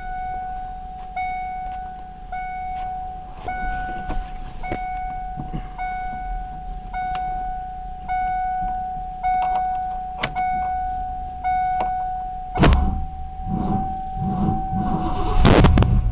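A dashboard warning chime dings about once a second over a steady high whine. Then the rebuilt 5.0 V8 of a 1992 Ford Mustang cranks in uneven pulses on a battery that needs recharging and fires near the end, a cold start.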